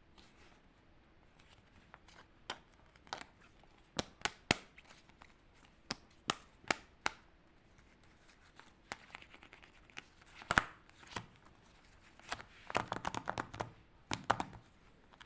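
Paper being handled: scattered sharp taps and clicks, then a short burst of rapid crinkling and rustling about three-quarters of the way through.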